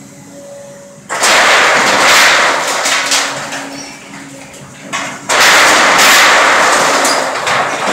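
Volvo excavator tearing into a steel-framed sheet-metal canopy: a sudden loud crash of crumpling, scraping metal about a second in that fades over a few seconds, and a second crash just past the five-second mark. Under it runs the low steady hum of the excavator's engine.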